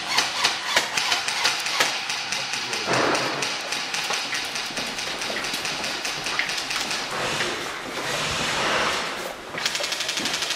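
Footsteps on a hard indoor floor, about three a second, with gear rustling as people walk down a corridor, followed by a quick run of rapid clicks near the end.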